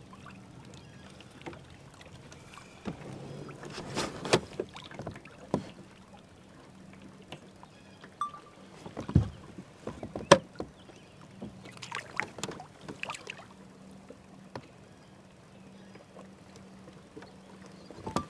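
Handling sounds aboard a kayak: scattered knocks, taps and rustles, with the loudest knock and a short splash about nine to ten seconds in as a bass is let go into the water.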